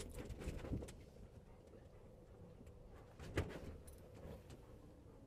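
Faint handling noises in a boat blind: soft rustles and clicks, then one short sharp knock about three and a half seconds in, over a faint steady hum.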